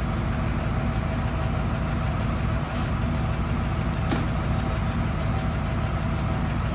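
Heavy equipment engine idling steadily, with one short click about four seconds in.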